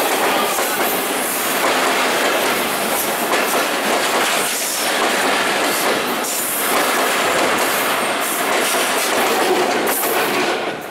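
Diesel-hauled passenger train passing at close range: the locomotive and a long string of coaches running by, with steady wheel-and-rail noise and repeated clatter of wheels over the rail joints. The level drops at the very end as the passing ends.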